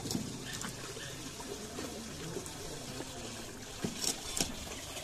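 Water trickling steadily from a tap into a bucket, with a few sharp knocks, the loudest about four seconds in.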